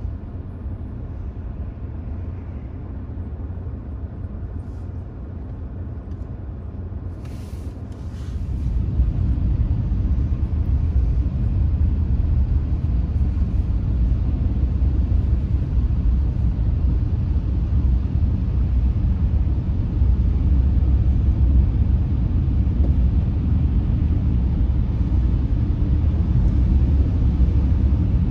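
Low, steady rumble of a car driving, road and engine noise, growing louder about eight seconds in and holding there.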